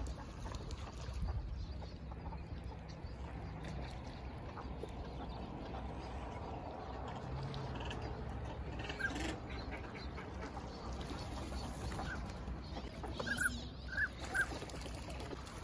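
Ducks on a pond calling with short, high notes: a few scattered calls, then a quick run of four louder ones near the end, over a steady low rumble.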